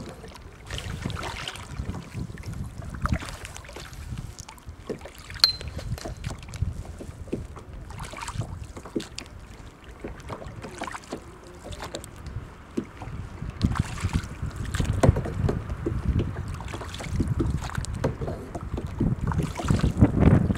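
Kayak paddle strokes dipping and splashing in lake water, with drips and small knocks against the hull. Wind buffets the microphone with a low rumble, strongest in the last several seconds.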